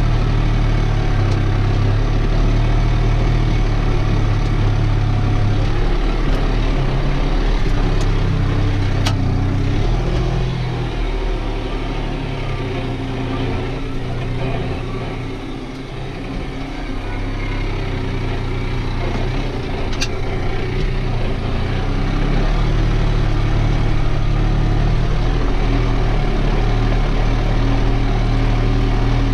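New Holland TT4.65 tractor's diesel engine running steadily under load while pulling a mounted plough, heard from inside the cab. Its sound drops for a few seconds about halfway through, then picks back up. Two faint clicks stand out along the way.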